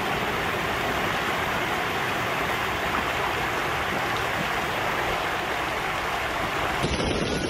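Floodwater rushing steadily through a flooded street, an even noisy rush of moving water. Near the end it cuts abruptly to a different flood recording with a thinner, patter-like sound.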